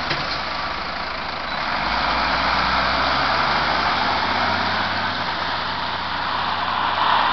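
LF 16/12 fire engine driving past, its diesel engine running under a steady hiss of tyres on wet pavement.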